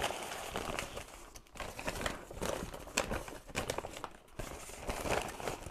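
Brown paper bags rustling and crinkling as they are handled and opened, on and off, with brief pauses about a second and a half in and again after four seconds.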